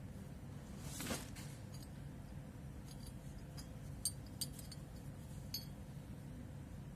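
Metal rings clinking against each other in the hand: a soft handling rub about a second in, then a few sharp, ringing clinks around the middle.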